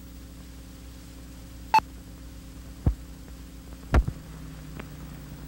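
Steady low hum from the soundtrack of a Super 8mm sound film running on a projector over the title and leader, broken by three loud pops about a second apart, the last two deep thumps.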